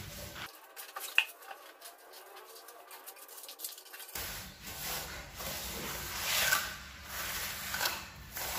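A flat trowel scraping and smoothing a bed of crumbly sand-cement mortar for a floor tile. There is a sharp click about a second in, and longer, louder scraping strokes in the second half.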